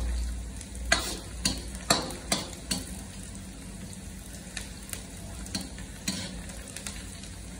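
Sliced onions sizzling steadily in hot oil in a large black karahi, being browned. A metal ladle stirs them and clinks and scrapes against the pan, about every half second in the first few seconds and more sparsely later.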